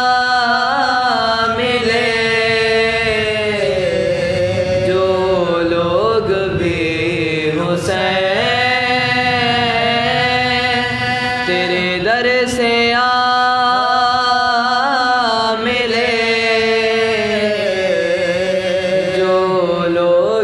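Soz khwani: male voices chanting an Urdu elegy, drawing each word out in long, wavering melismatic notes over a steady lower held note.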